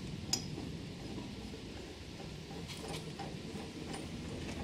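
Faint metal clicks and light handling noise from the metal parts of a shaper gear cutter being handled, with one sharper click about a third of a second in and a few softer ones later.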